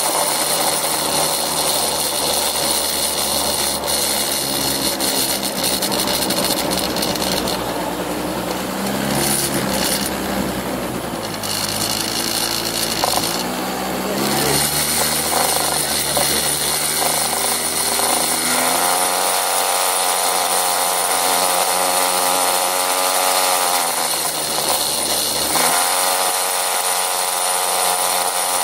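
Small motor scooter engine running under way, its pitch rising and falling several times with the throttle.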